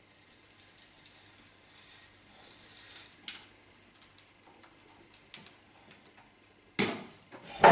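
Granular akadama–kiryuzuna bonsai substrate rustling and ticking faintly as it is worked in around the roots with a chopstick, then two sharp knocks about a second apart near the end.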